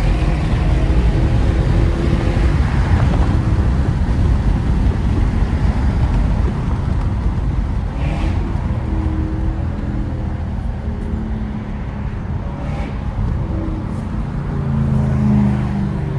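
Lexus GS430's 4.3-litre V8 with its catalytic converters removed, the exhaust running loud while driving. It eases off about halfway through and builds again near the end.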